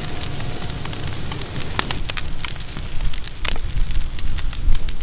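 Open cooking fire crackling and sizzling under a large fish on the grill, with scattered sharp pops.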